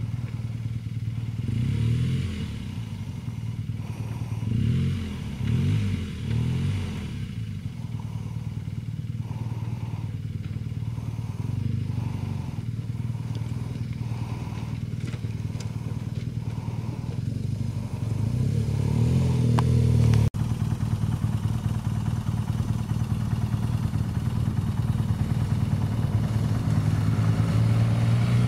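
BMW R1200GS Adventure's boxer-twin engine, picking its way over rocks with short surges of throttle. After a sudden cut about two-thirds through, it runs louder and steadier as the bike rides along a gravel track.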